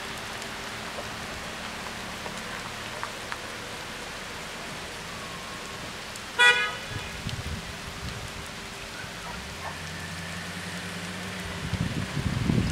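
Steady rain falling on wet pavement and foliage. About six seconds in, a single short horn toot. Near the end, a car approaches over the wet road, its engine and tyre noise growing louder.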